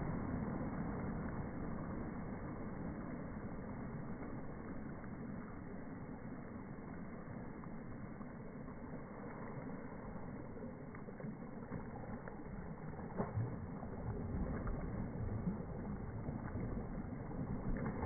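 Small waves washing up and back over a sandy beach right at the shoreline, a steady rushing wash that swells and eases. In the second half there are a few sharper splashes of water.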